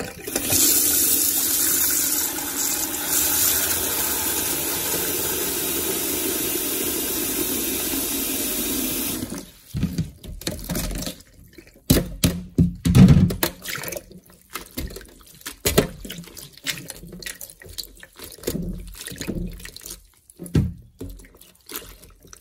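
Kitchen tap running steadily into a bowl in a stainless steel sink, stopping after about nine seconds. Then irregular sloshing and splashing as hands stir coral mushrooms in the water to rinse them.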